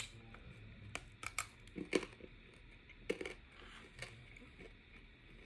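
Close-up chewing of a Charleston Chew, a chocolate-covered nougat bar gone soft and sticky in the mouth: irregular short mouth clicks and smacks.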